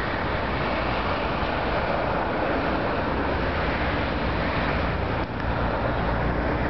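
Steady city street noise: a continuous rumble and hiss of traffic, with wind on the camera microphone. The noise briefly dips about five seconds in.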